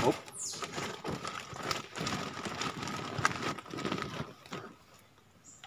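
Woven sack holding freshly caught live snakehead fish, rustling and knocking in irregular bursts as it is handled in the boat, fading toward the end.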